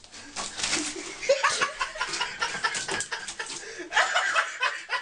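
People laughing in short, choppy bursts.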